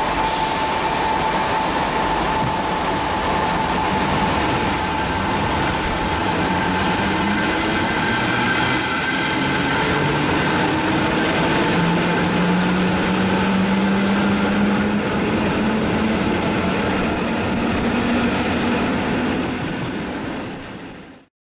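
Interior running noise of a ČD class 460 'Tornado' electric multiple unit pulling away from a station, with a low motor hum that rises in pitch as the train gathers speed. A steady high tone sits over it for the first several seconds, and the sound fades out near the end.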